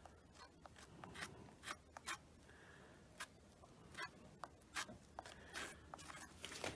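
Faint scattered clicks and light scraping of a wooden stick spreading quick-setting filler over a dashboard panel.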